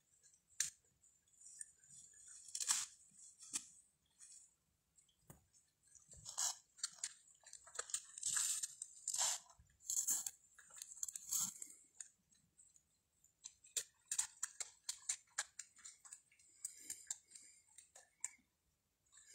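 Footsteps crunching through dry leaves and brushing against dry twigs and branches, in irregular crackling rustles with short pauses.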